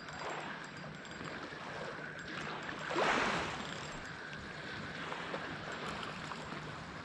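Sea water lapping against the shore, with one louder wash about three seconds in that fades over about a second.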